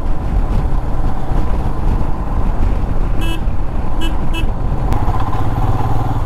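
Royal Enfield Himalayan 411's single-cylinder engine running at riding speed, with steady wind and road noise. Three short vehicle horn toots come about halfway through, and the engine note grows stronger near the end.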